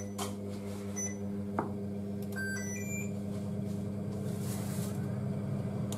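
Induction cooktop's control panel beeping as the hob is switched on: a short beep about a second in, then a quick run of short beeps at several different pitches between two and three seconds in. A steady low electrical hum runs underneath.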